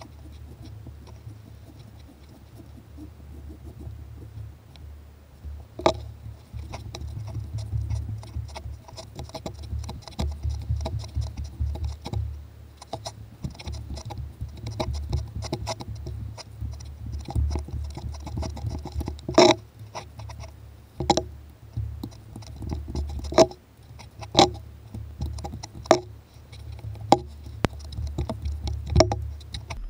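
Socket wrench turning jacking screws in the water pump's two threaded holes to press the pump off a BMW M54 engine, with scattered sharp metallic clicks of the tool against the pump and bolts over a low steady rumble of handling noise.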